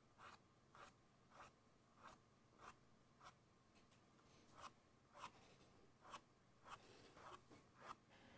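Faint scratch of a round brush flicking short strokes of white acrylic paint across a canvas, about two strokes a second, with a short pause near the middle.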